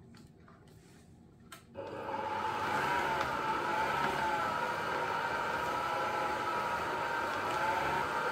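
Electric stand mixer with a dough hook kneading bread dough: a few light clicks, then the motor starts a bit under two seconds in and runs steadily with a wavering whine.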